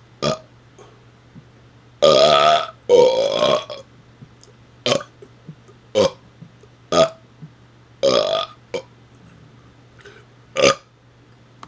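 A man belching on command, bringing back up air he has deliberately swallowed. There are about eight burps: two longer, pitched ones a couple of seconds in, then short ones roughly a second apart.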